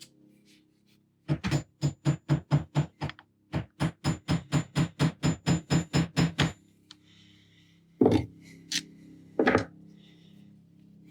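Light, quick metal taps on the Saginaw steering gear's retaining nut, struck through a flathead screwdriver to drive the nut down over the worm-gear threads. They come at about four a second in two runs with a short pause between, followed by two heavier knocks near the end.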